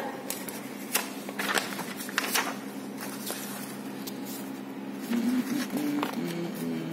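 Paper pages of a thick lab manual being turned by hand: several short rustles and flaps of paper at irregular intervals.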